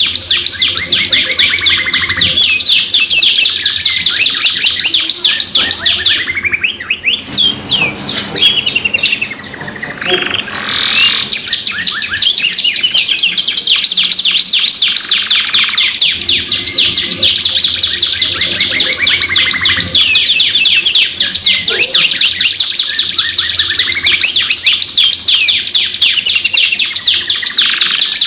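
Domestic canaries singing long, continuous rapid trills and rolls, the song dipping briefly about a third of the way in before picking up again.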